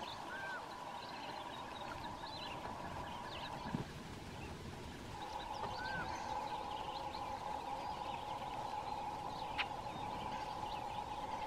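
Marsh ambience: many short bird chirps and a couple of hooked, whistled calls over a steady droning chorus, which drops out briefly about four seconds in. Two brief knocks, one about four seconds in and one near the end.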